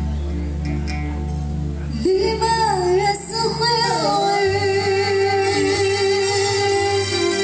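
Live Arabic-style song: a woman singing through a microphone, coming in about two seconds in with ornamented, bending phrases, then holding one long note. Behind her is an accompaniment of keyboard with a steady bass line, oud and violin.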